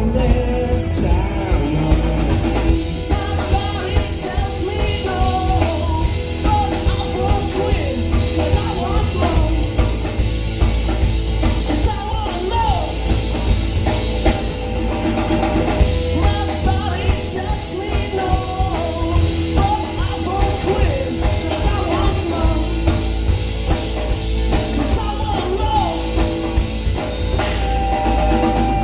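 Live rock band playing: electric bass, electric guitar and drum kit, with a man singing lead at times.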